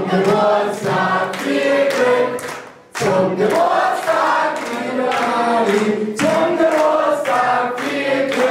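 A crowd of people singing together in chorus, with hand claps keeping the beat. The singing drops away briefly just before three seconds in, then picks up again.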